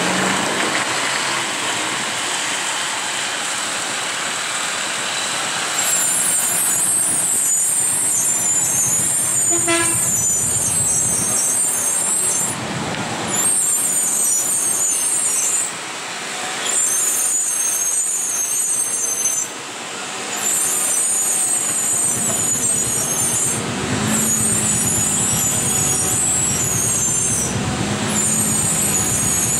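Heavy loaded lorry's diesel engine running as it climbs a hill road, with a short horn toot about ten seconds in. From about six seconds a loud high-pitched hiss sounds in long stretches with short breaks.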